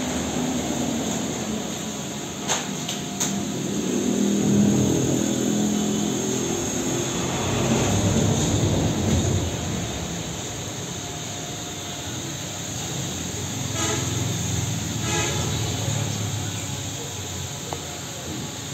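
A steady, low mechanical rumble with shifting tones, and two sharp clicks about two and a half and three seconds in.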